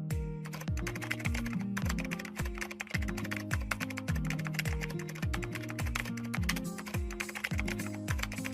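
Music with a steady kick-drum beat, about two beats a second, under a rapid, irregular clatter of computer-keyboard typing clicks.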